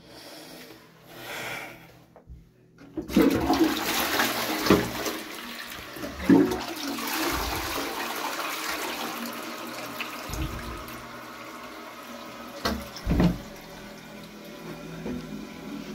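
Toilet flushing: a loud rush of water starts about three seconds in and slowly fades, with a few knocks along the way.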